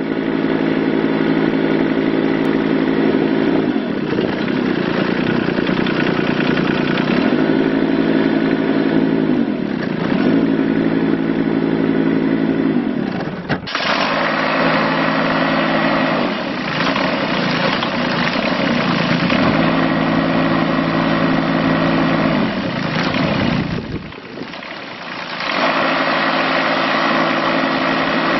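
Kubota K008-3 mini excavator's small three-cylinder diesel engine running steadily, its speed dipping and coming back up several times.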